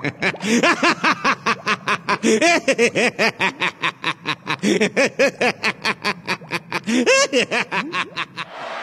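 A man's long, villainous laugh, a rapid run of 'ha-ha' pulses about five a second, rising and falling in pitch. Near the end it breaks off into a steady hiss.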